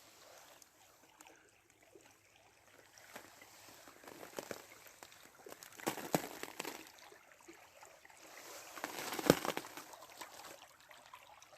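Small forest brook, still unfrozen in the frost, running fairly briskly with a steady trickling rush. Scattered clicks are heard, and about nine seconds in there is a louder surge with one sharp knock.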